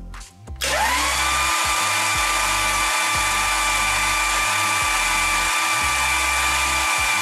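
Starter motor cranking a 454 big-block Chevy V8 with its spark plugs out, so it spins over freely with no compression. Its whine rises as it comes up to speed about half a second in, then holds steady.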